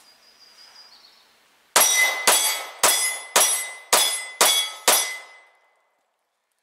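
Seven rapid shots from a Smith & Wesson M&P40 Compact .40-caliber pistol, about half a second apart, each ringing on briefly.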